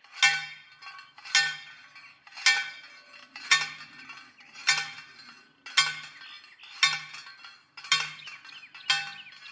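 Manual post driver pounding a metal fence post into the ground: nine ringing metallic clanks, about one a second.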